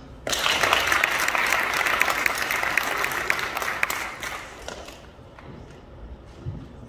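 Audience applauding. The clapping breaks out suddenly just after the start, stays full for about four seconds, then dies away.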